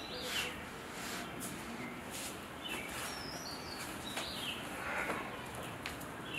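Birds chirping in the background, short falling chirps repeated every second or two over a faint steady hiss.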